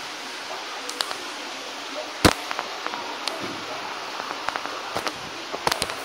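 Steady rush of a waterfall inside a cave, with scattered sharp clicks and knocks over it. The loudest knock comes about two seconds in, and several more bunch up near the end.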